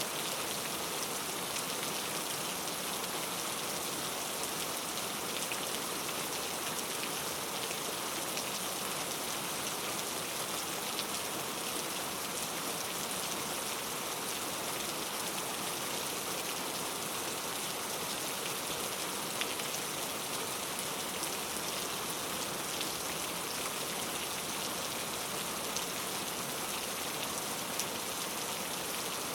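Steady rain falling on forest foliage, a dense even hiss of countless small drops with occasional closer drip ticks.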